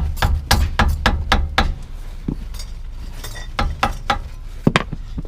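Hammer blows on metal, a quick run of about four strikes a second for the first couple of seconds, then a few scattered hits, while breaking the front axle nut loose.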